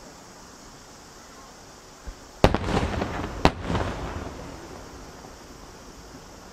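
Two loud booms from aerial firework shells about a second apart, after a faint thump, each reverberating into a rolling rumble that dies away over a couple of seconds.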